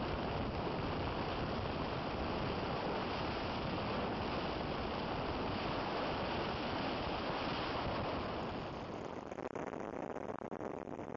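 Steady wind rush and road noise from travelling at highway speed, with wind blowing over the microphone. About eight seconds in, the noise drops a little and becomes thinner and more uneven.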